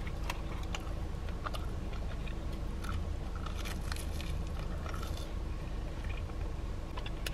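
Close-up biting and chewing of crispy breaded fried food, with scattered small crunches, over a steady low hum inside a car.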